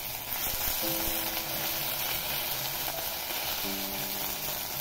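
Ginger paste and whole spices sizzling in hot oil in an iron kadai while a flat metal spatula stirs them: a steady frying sizzle for a Bengali tempering (phoron) of dried red chilli, bay leaf and ginger.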